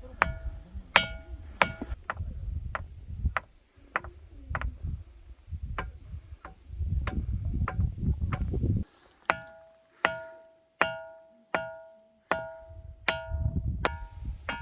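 Manŏsa's ringing stones, boulders that ring like a bell, being tapped again and again with a small stone. Each tap gives a short bell-like ring that dies away, about one a second or a little faster, with a low rumble under the taps in the first half.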